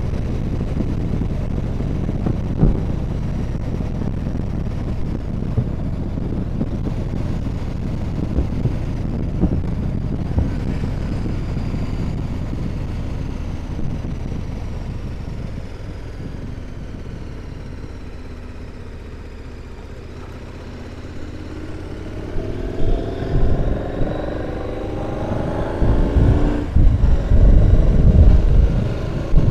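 Motorcycle riding with wind rushing over the microphone. The engine eases off and quietens through the middle, then accelerates with a rising pitch in the last several seconds, as wind buffeting grows louder.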